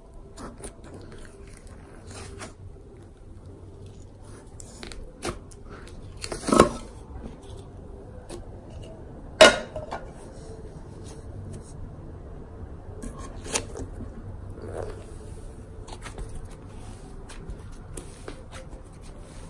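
Cloud slime being kneaded in a plastic jar, pulled out and stretched by hand: faint scattered small clicks, with two louder knocks, one about a third of the way in and a sharper one near the middle.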